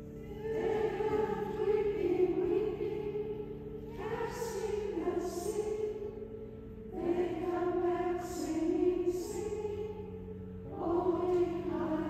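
Group of women singing a hymn together in unison, in phrases a few seconds long, over steady low held accompaniment notes.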